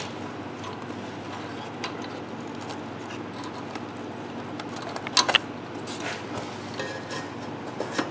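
Light metallic clinks and scrapes of a steel exhaust flex pipe and its flange bolts being handled and fitted against the exhaust flange, with a quick cluster of three sharp metal clicks a little past halfway.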